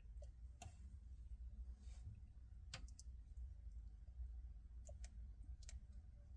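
Faint, scattered clicks, a few seconds apart, over a low steady hum; otherwise near silence.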